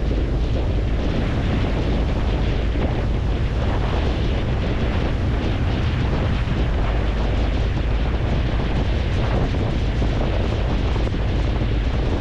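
Steady wind buffeting the microphone on a moving boat, over a low rumble and the rush of water.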